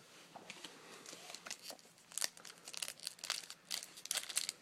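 Crinkling and crackling of a foil trading-card pack wrapper and cards being handled, growing into a run of quick, close-together crackles about two seconds in.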